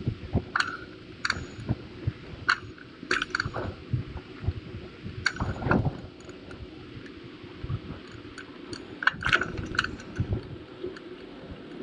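Bicycle riding noise picked up by a camera on the bike: irregular clicks and rattles over a low rumble of wind and tyres on the path.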